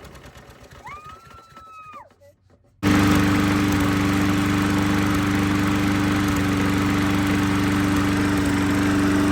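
Walk-behind lawn mower engine dying away, a brief high chirp, then a second of near silence; about three seconds in the mower's engine is suddenly heard running loud and steady at full speed.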